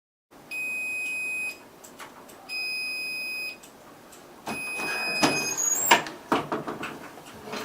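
An electronic beeper sounds three long, steady high beeps about a second apart. The third is overlapped by clattering knocks and a short rising whistle.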